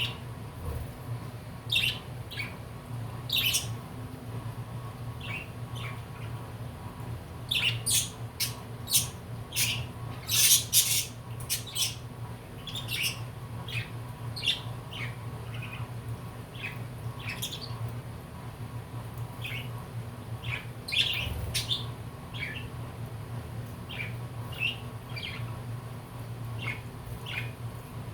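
A flock of budgerigars chirping and squawking in short, scattered calls, busiest in a flurry about a third of the way in. A steady low hum runs underneath.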